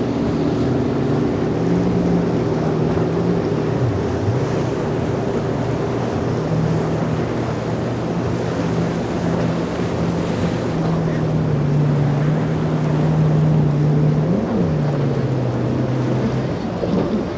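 Motorboat engines running through rough water, over a steady wash of waves and wind on the microphone. Their pitch drops and climbs back about four seconds in, then rises briefly and settles lower near the end as the throttle is worked.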